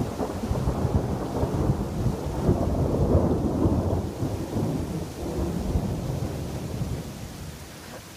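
A long roll of thunder rumbling in irregular swells, dying away over the last second or so. Underneath is a steady hiss of rain.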